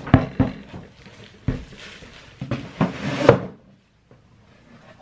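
Plastic-wrapped cardboard tubes of rolled vinyl knocking and rustling as they are handled and set down: a few separate knocks, then a denser cluster about three seconds in, the loudest of them.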